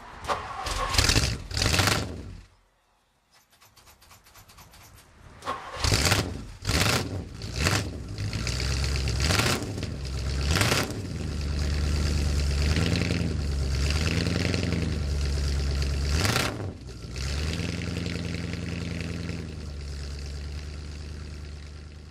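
1959 Lincoln Continental's 430 cubic-inch V8 being started: loud bursts of cranking, a short pause and more cranking before it catches about eight seconds in. It is revved a few times, then settles into a steady idle.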